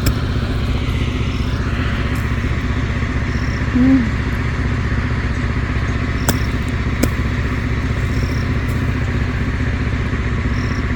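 Small engine generator running steadily, a continuous low drone with an even rapid pulse. A short pitched sound comes about four seconds in.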